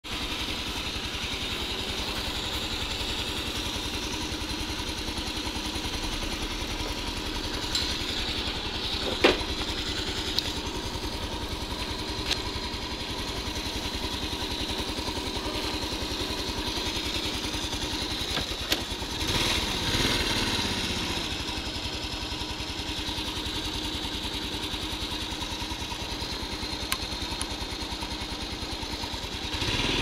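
Honda Super Cub C50's small single-cylinder four-stroke engine idling steadily, with a brief rev about twenty seconds in and a rise in engine sound at the very end. A single sharp click stands out about nine seconds in.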